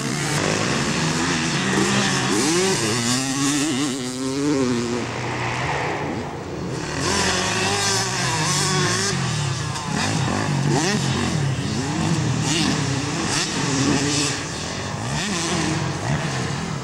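Motocross dirt bikes racing, their engines revving up and down again and again as the riders work the throttle through jumps and turns. At times more than one bike is heard at once.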